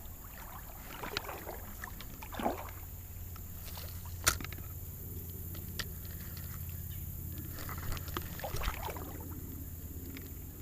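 River water sloshing and splashing around legs as someone wades through the shallows, in scattered swishes, with one sharp click about four seconds in.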